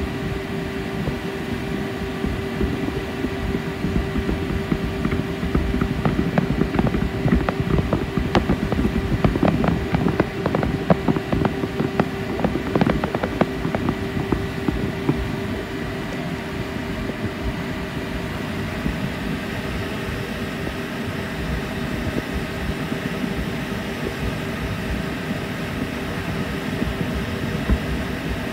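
Steady engine hum of a boat with a constant drone, and distant fireworks going off in a burst of sharp pops and crackles from about five to fourteen seconds in.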